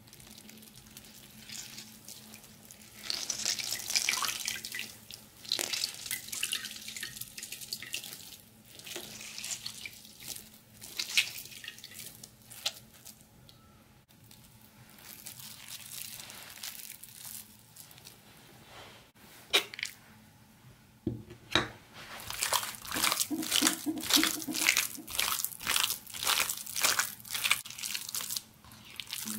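Wet squelching of food worked by hand: a soaked bread bun squeezed out, then minced meat squished and kneaded in a ceramic bowl. The strokes come quicker and closer together in the last third.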